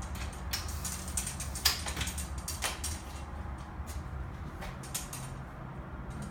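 Scattered clicks, knocks and sliding of a telescoping metal socket rod being handled and adjusted in length, over a low steady hum.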